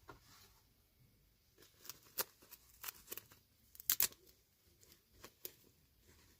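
Toy packaging being handled and opened by hand: scattered sharp crinkles and clicks, the loudest a quick pair about four seconds in.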